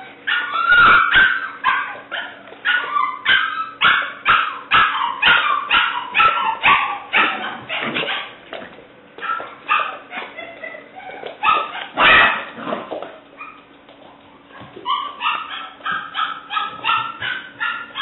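English Springer Spaniel puppy, seven weeks old, barking and yipping in a rapid run of short high-pitched calls, about two or three a second. It eases off for a couple of seconds past the middle, then starts again near the end.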